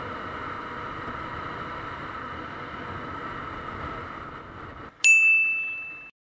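Steady wind and engine noise of a Bajaj Pulsar RS200 motorcycle riding at highway speed. About five seconds in it gives way to a loud, edited-in bell-like ding that rings on one high tone for about a second, then cuts off.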